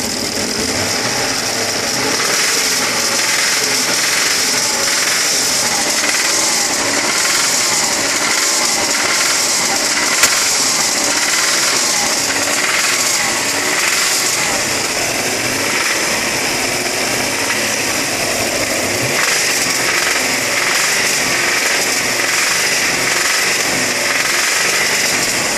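Engine (code AKG) running with a knocking connecting rod: a rod-bearing knock over the engine note.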